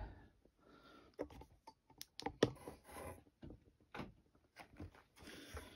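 Faint, scattered clicks and taps of hands handling a plastic solar motion-sensor LED light over a cardboard box.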